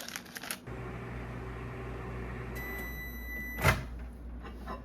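Microwave oven running with a steady low hum as butter melts. A high beep sounds for about a second midway, ending in a sharp knock.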